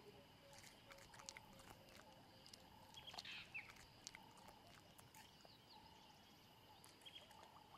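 Faint, soft clicks of a young lion cub gnawing on a bone. Brief bird chirps come now and then over a thin, steady background hum.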